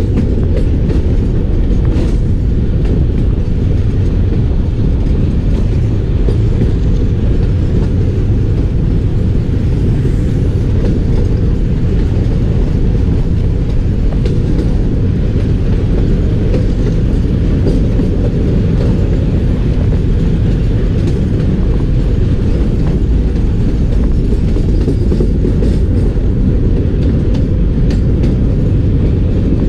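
Passenger train running along the track, heard from the open door of a moving coach: a loud, steady low rumble of wheels on rails with a few faint clicks.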